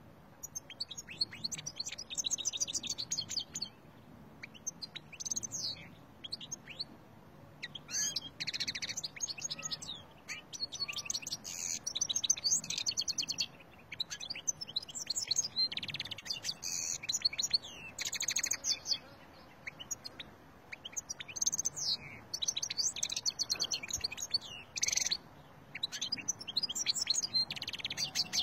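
European goldfinch singing: bursts of rapid, twittering high notes a second or two long, with short pauses between them.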